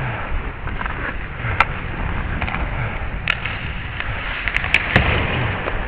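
Ice hockey play heard from a helmet camera: a steady scraping hiss of skates on the ice, with a few sharp clacks of sticks and puck, most of them bunched together near the end.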